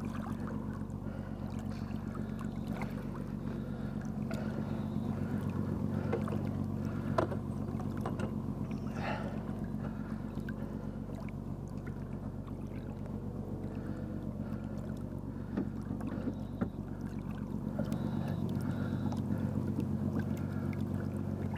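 Boat motor running steadily at idle, a low even hum, with a few light knocks against the hull or gear now and then.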